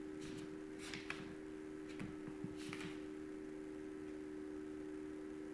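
Quiet room tone: a steady low electrical-sounding hum, with a few faint clicks about a second in and again around two to three seconds in.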